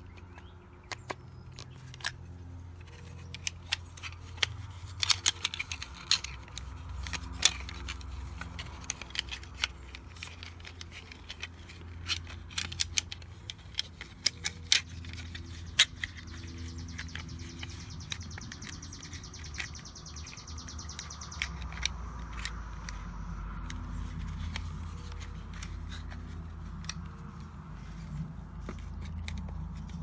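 Scattered small clicks and taps of hand work: a screwdriver turning the wire terminal screws on the back of a Ring Video Doorbell Pro, and the plastic doorbell being handled and fitted to its mounting plate, over a steady low hum.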